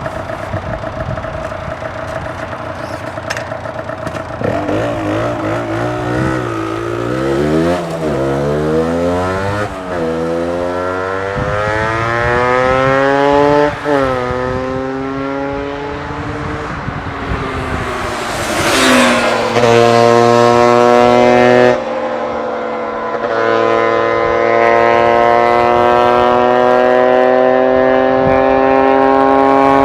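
Two-stroke single-cylinder engine of a 1998 Yamaha DT125 with an aftermarket Athena end silencer, idling steadily at first. About four seconds in it revs, its pitch climbing and dropping again several times. Over the second half it runs at high revs, its pitch slowly rising.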